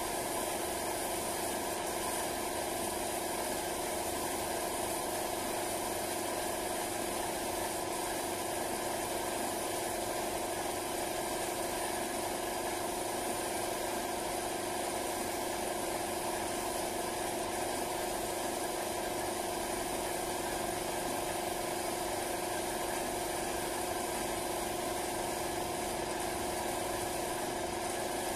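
Air compressor for a paint spray gun running steadily, a constant motor hum with no change in pitch or level.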